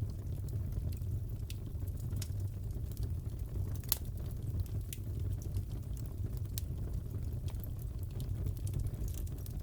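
Crackling fireplace: a steady low rumble of the fire with scattered sharp pops and snaps from burning wood, one louder pop about four seconds in.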